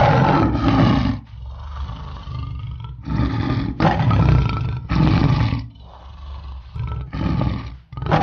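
Tiger roars from a recording: about five loud, rough roars of around a second each, with lower growling between them.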